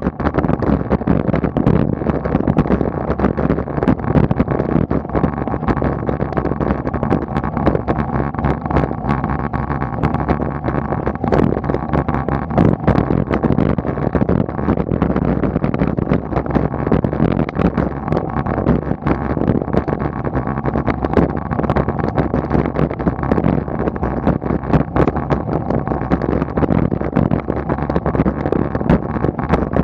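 Steady wind and road noise on a road bike's onboard camera microphone while climbing at walking-to-jogging pace, with frequent small clicks and rattles throughout.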